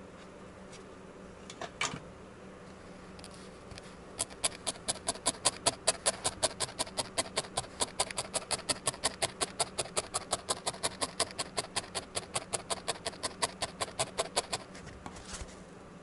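Felting needle stabbing repeatedly through a tuft of core wool into a foam felting pad: a long run of quick, even pokes that starts about four seconds in and stops near the end. A couple of single handling knocks come a couple of seconds in.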